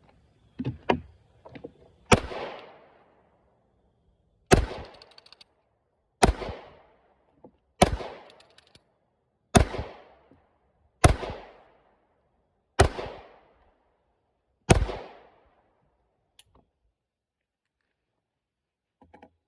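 Eight single shots from a Glock 43 9mm pistol, slow aimed fire about one every one and a half to two seconds, each with a short ringing tail, after some light handling clicks. The string stops short of the ninth round because the Shield Arms Z9 magazine, its spring weak, fails to feed the last round.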